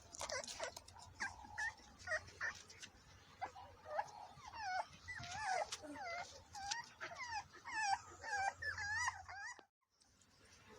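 Bull terrier puppies whining and yipping as they play, many short squeaky calls overlapping one another. The sound cuts out briefly near the end.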